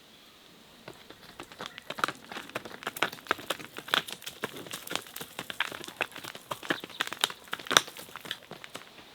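Irregular crackling and crinkling, many sharp clicks in quick uneven succession, like dry material or wrapping being handled. It starts about a second in and stops shortly before the end.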